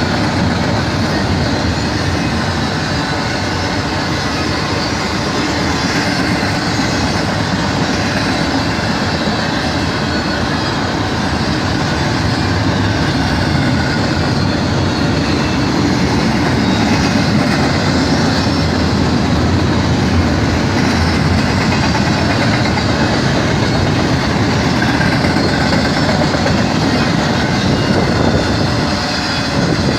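Intermodal freight cars rolling past at steady speed: a continuous noise of steel wheels running on the rails, loud and unbroken.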